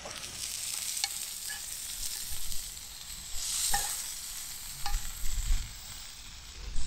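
Food sizzling in a hot cast-iron skillet, a steady hiss, with a few short clicks of metal tongs against the pan as a potato cake is lifted out.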